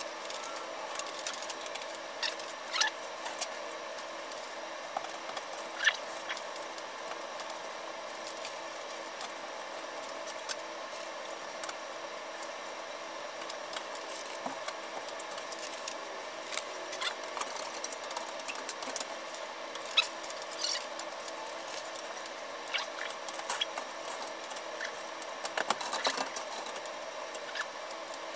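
Scattered small clicks, scrapes and rustles of hands handling the electrical wires of an open fluorescent light fixture, the sharpest clicks about 6 and 20 seconds in and a cluster near the end. A steady hum runs underneath.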